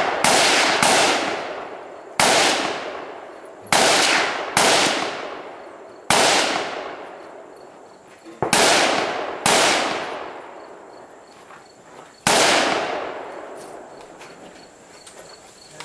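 AR-15 rifle shots fired at an uneven pace, about nine in all. There are two quick shots right at the start, then single shots with pauses of one to four seconds. Each crack rings out in a long echo that fades over a second or two.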